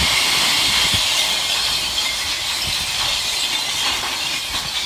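Glass bottles pouring from an opened bottle bank into a lorry's open body: a loud, continuous rushing crash of tumbling, breaking glass, easing slightly near the end.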